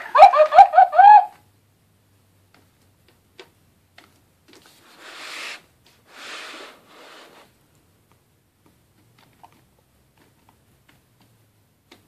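FurReal Friends Squawkers McCaw animatronic toy parrot giving a quick string of short pitched squawks through its speaker, stopping about a second in. Two soft hissing sounds follow a few seconds later.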